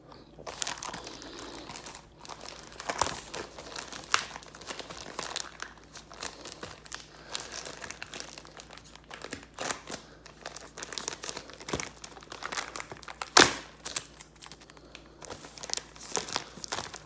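Parcel packaging being handled and pulled at by hand: a run of irregular crinkling and crackling with some tearing, and one sharper, louder crackle about thirteen seconds in.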